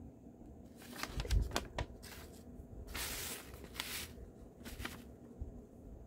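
Paper rustling and crinkling as a folded paper instruction sheet is unfolded and turned over, in a run of short rustles from about a second in to near the end, with a soft bump about a second and a half in.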